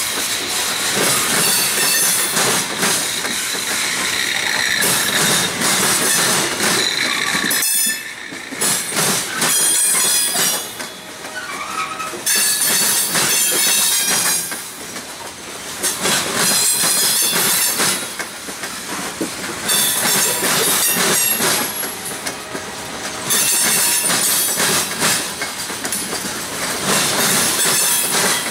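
Steel wheels of CSX open-top hopper cars banging over a diamond crossing, a steady run of clattering impacts that swells and eases every few seconds as each pair of trucks crosses, with high wheel squeal over the first several seconds.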